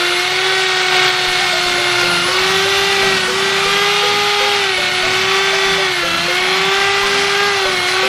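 Handheld Mollar electric drill spinning a polishing pad against a motorcycle engine block to polish the metal. Its motor whine holds a steady pitch and dips slightly now and then as the pad is pressed on.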